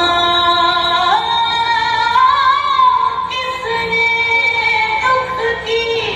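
A slow song with a woman singing long, drawn-out notes over musical accompaniment.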